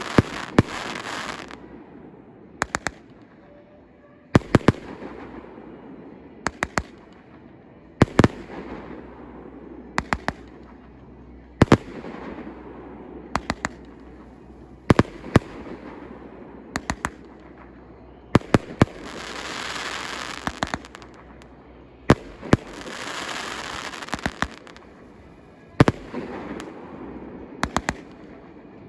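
Fireworks display: aerial shells bursting with sharp bangs in quick clusters of two to four every couple of seconds. Two longer stretches of hissing noise come about two-thirds of the way through.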